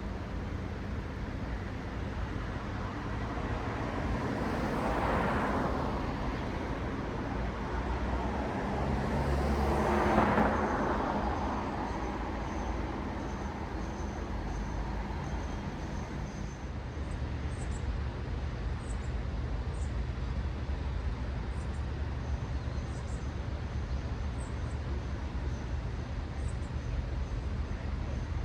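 Cars passing on a city street: two vehicles swell past, about five and ten seconds in, over a steady low traffic rumble. Faint short high chirps repeat through the second half.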